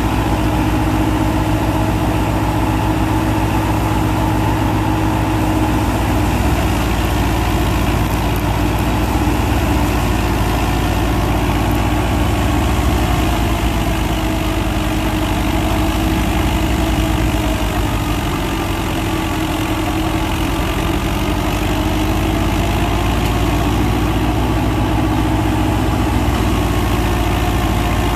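NH Dabung 85 hp diesel tractor engine running steadily, driving a wheat thresher through its PTO, the engine and thresher heard together as one loud, continuous drone. The pitch wavers slightly up and down and the sound eases a little about two-thirds of the way through.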